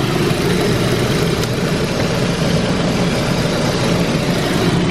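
Audi A4 B8 TSI engine idling while misfiring, still missing, with unburnt fuel going out the exhaust: the sign of a bad fuel injector.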